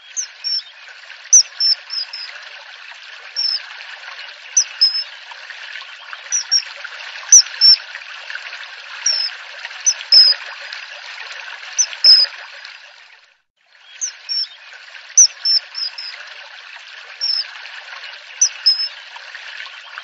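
Common kingfisher giving short, shrill, high-pitched calls, singly and in quick pairs or threes, over steady trickling water. All sound cuts out for about a second past the middle.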